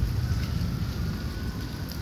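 Storm wind buffeting the microphone with rain falling, and a faint siren wailing slowly in the distance.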